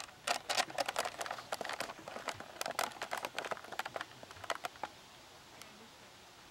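Irregular crackling and rustling clicks, like fingers and grip moving on a handheld camcorder's body. The clicks come thick and fast for the first three seconds, thin out, and stop about five seconds in, leaving a faint steady hiss.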